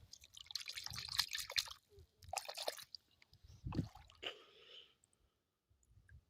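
Crackling, dripping water sounds, as of a wet stone being handled in creek water, with a single low thump nearly four seconds in.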